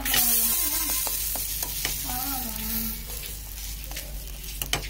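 Semolina batter pancake sizzling in hot oil in a frying pan as it is flipped, the sizzle loudest just after it lands and slowly dying down. A few light clicks of the metal spatula against the pan, the sharpest near the end.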